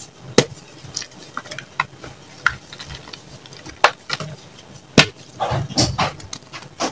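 Blocks of gym chalk crunching and crumbling as hands squeeze them in loose chalk powder: an irregular run of sharp crunches, several of them loud, with a burst of them about five to six seconds in.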